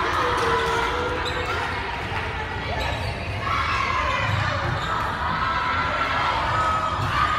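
Voices of players and spectators calling out and chattering in a large gymnasium, with a few thuds of a volleyball bouncing on the hardwood court floor between points.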